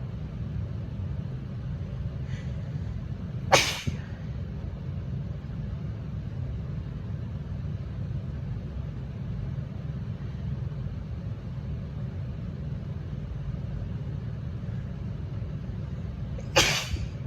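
A woman sneezing twice, allergy sneezes brought on by tickling her nose: one short, sharp sneeze about three and a half seconds in and another near the end, over a steady low rumble.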